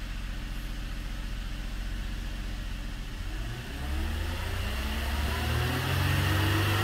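2013 Hyundai Genesis 3.8-litre V6 idling steadily, then revved about halfway through, its pitch rising and holding higher near the end.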